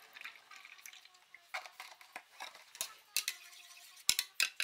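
Almond milk pouring from a carton into a plastic tumbler, then a metal straw stirring the drink, clinking and tapping against the cup. The sharpest clinks come near the end.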